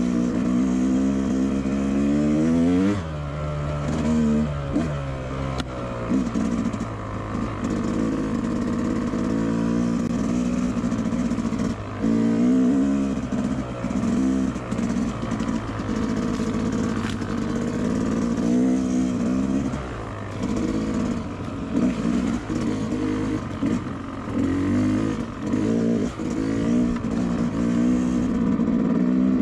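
Two-stroke dirt bike engine running under load, its revs rising and falling constantly as the throttle is worked and gears change.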